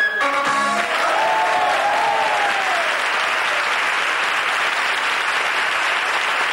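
An audience applauding steadily as the accompanying music stops about a second in, with one long call rising and falling over the clapping between about one and three seconds in.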